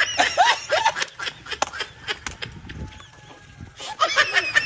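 Laughter in short, rapidly repeated bursts in the first second and again near the end, with a run of sharp clicks or knocks in between.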